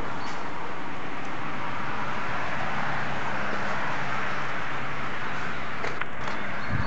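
Steady hiss of background noise, with a few faint clicks and knocks near the end.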